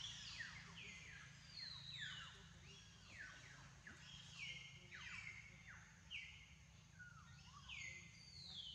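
Faint birdsong: many short chirps sliding downward in pitch, several each second and overlapping, over a low steady hum.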